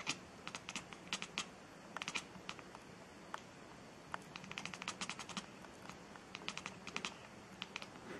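Irregular clusters of quick, light clicks and taps, over a faint steady hum.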